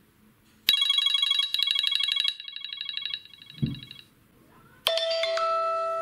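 iPhone ringtones played back in turn. The first is a fast-pulsing, high electronic trill that starts suddenly about 0.7 s in and fades out by about 4 s. After a brief low thump, a bell-like chime chord strikes near the end and keeps ringing.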